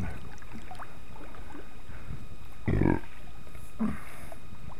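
Steady water and wind noise around a small kayak on a river. A short, low vocal grunt from the kayaker comes about three seconds in, with a fainter one just after.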